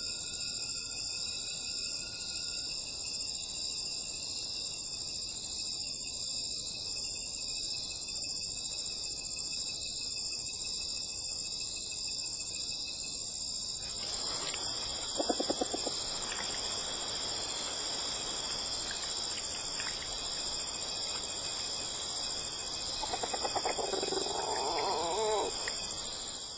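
A steady night chorus of crickets and other insects, trilling at several pitches at once. About halfway through, a rustling noise of movement through grass joins in, with two short louder rasping bursts, one soon after it starts and one near the end.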